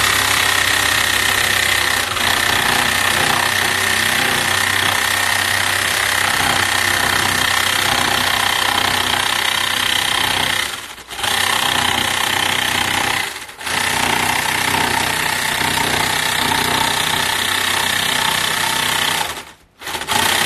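Einhell electric jigsaw running and cutting through a wooden board, trimming off excess material. The motor and blade run steadily at a high buzz, dip briefly twice around the middle, and cut out for a moment near the end.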